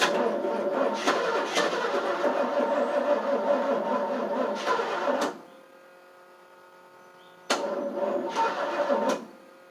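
Starter cranking the 1988 FMC 6000's carbureted engine without it catching: a long crank of about five seconds, a pause with a faint steady whine, then a shorter crank of under two seconds. The engine won't fire because no fuel is reaching the carburetor.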